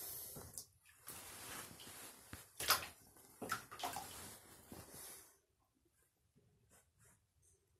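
Shallow bathtub water sloshing and splashing as a hand and a swimming king snake stir it, with a few sharper splashes. The water noise stops suddenly about two-thirds of the way through, leaving only faint drips and ticks.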